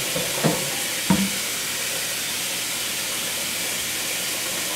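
Kitchen faucet running steadily into a bowl in a stainless sink as the bowl fills, a steady hiss of water. Two brief bumps in roughly the first second.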